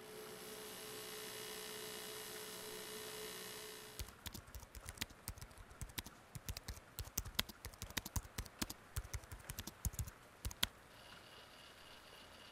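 Typing on a ThinkPad laptop keyboard: irregular key clicks, some louder than others, for about seven seconds. A steady hum with a held tone fills the first four seconds before the typing, and a quieter hum with a high tone follows it.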